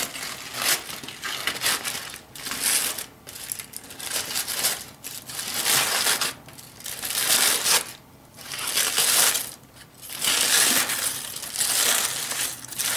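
Aluminium foil crinkling and crumpling in repeated stretches as several wrapped layers are pulled and cut open by hand and with a knife.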